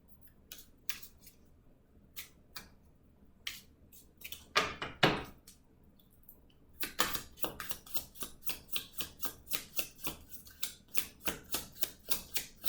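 Oracle cards being shuffled by hand: scattered card clicks, a louder rustle of cards about five seconds in, then a fast run of card slaps, about five or six a second, from about seven seconds in.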